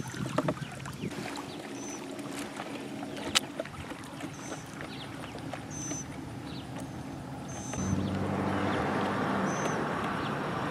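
Electric trolling motor of 55-lb thrust running with a low steady hum as it pushes a small pontoon boat across the water; about eight seconds in, the hum and a hiss of wind and water get louder.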